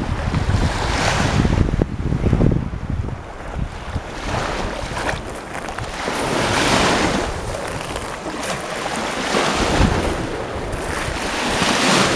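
Sea waves washing in and breaking, swelling and fading every few seconds, with wind buffeting the microphone.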